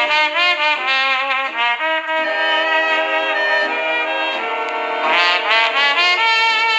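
Brassy orchestral music with trumpets and trombones playing quick running phrases over held lower notes.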